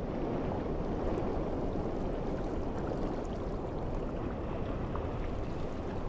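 Steady underwater ocean ambience: a low, even wash of water noise with faint scattered clicks.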